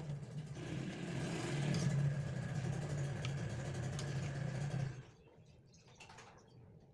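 Stir-fry in a metal wok: a steady low hum with sizzling hiss, which cut off together about five seconds in. After that come light scrapes and clicks of a metal spatula against the wok and a plastic bowl as the vegetables are served.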